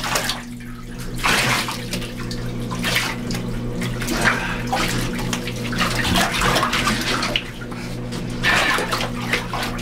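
Bathwater splashing and sloshing in a bathtub in irregular splashes as a wet small dog is scrubbed by hand, over a steady low hum.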